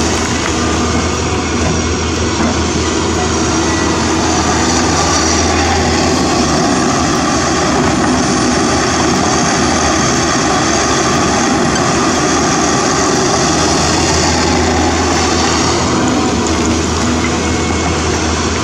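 CAT 320D2 hydraulic excavator's diesel engine running steadily under load as the machine digs and swings.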